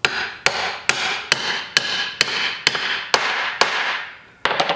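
Mini sledge striking the steel yoke of a front axle shaft about twice a second, each blow ringing, driving a new U-joint bearing cap up through the yoke ear until its C-clip groove shows. Three quick blows come close together near the end.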